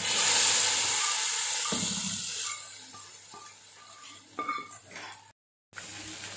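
A tadka of hot oil with whole dried red chillies and cumin is poured into a pot of kadhi. It sizzles loudly as it hits, and the hiss fades over about two and a half seconds. Then a ladle stirs it in, clinking against the metal pot.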